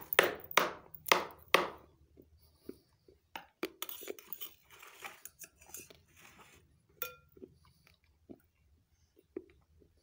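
A toddler eating from a small steel bowl with a metal spoon: five sharp knocks in the first two seconds, then quieter clicks, scrapes and chewing.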